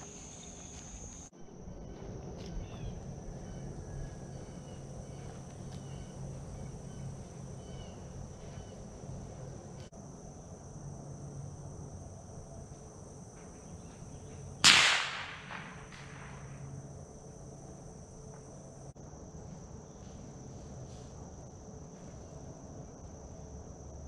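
A single .22 rifle shot about halfway through: one sharp, loud crack with a short tail of echo fading over a second or so. Steady insect and cricket sounds carry on underneath.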